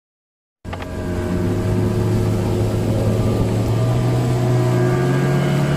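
Outboard motor of a river longboat running steadily under way, over the rush of water along the hull. It cuts in suddenly about half a second in, and its note rises slightly as it goes.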